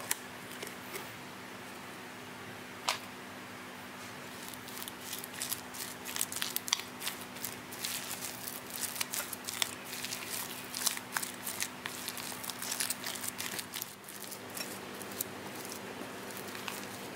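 Silicone spatula stirring mayonnaise into mashed potato in a glass bowl: wet squishing with a quick run of clicks and scrapes against the glass, starting about four seconds in and easing off about four seconds before the end. A steady low hum runs underneath.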